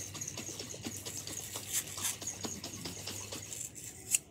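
Scratchy rustling and many small clicks of paper labels being peeled and rubbed off glass jars by hand, with one sharper click near the end.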